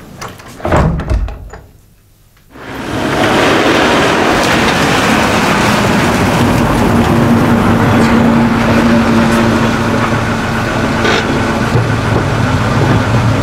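A door shuts with a thump about a second in. After a short quiet, a car runs steadily as it drives along a dirt road, engine hum and tyre noise continuing to the end.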